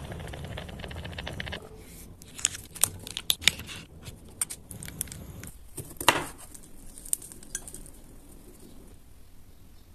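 Corn cobs simmering in milk in a pot, bubbling for about the first second and a half. Then a kitchen knife cuts limes on a wooden chopping board, a string of sharp taps with the loudest cut about six seconds in.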